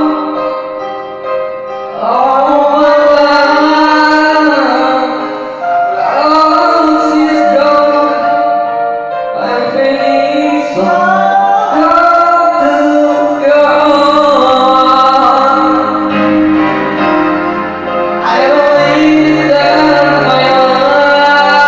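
Music with singing: long, held, slightly wavering notes in phrases of a few seconds each.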